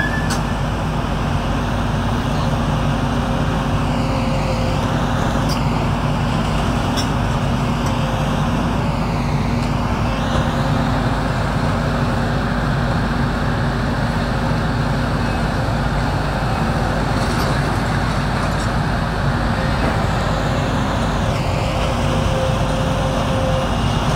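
Volvo tracked excavator's diesel engine and hydraulics running steadily while its demolition grab works at burnt-out walls, with a few faint knocks from the rubble.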